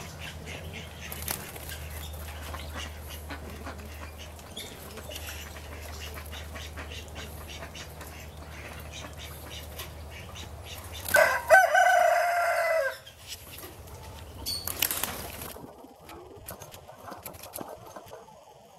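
A rooster crows once, a drawn-out call of almost two seconds about eleven seconds in, the loudest sound here. A low steady hum runs under it and stops at the crow, and a short burst of noise follows a few seconds later.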